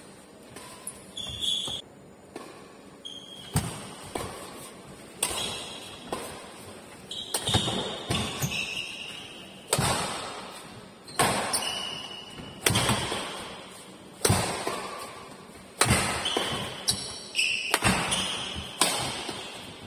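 Badminton rackets striking a shuttlecock in a doubles rally: sharp hits about every one to two seconds, echoing in a large hall. Short squeaks come between some of the hits.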